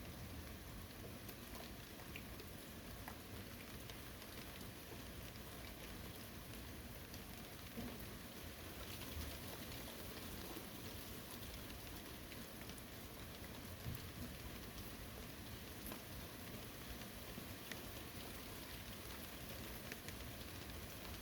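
Steady rain falling on forest foliage, an even hiss with scattered individual drop ticks and a few heavier drips landing now and then.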